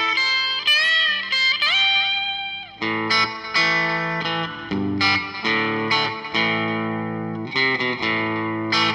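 Fender Telecaster electric guitar played through a Fender Blues Junior valve amp and a Coldcraft EchoVerberator pedal, with reverb and delay on together. A few string bends come in the first two seconds, then a series of picked notes and chords that ring out.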